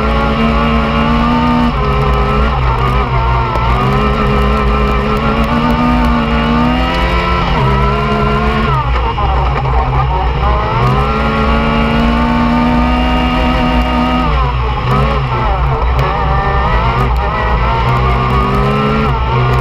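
Yamaha YXZ1000R's three-cylinder engine heard from inside the open cockpit, revving hard under full throttle while racing on dirt. Its pitch climbs in long rises and drops sharply three times as the driver lifts or shifts, before building again.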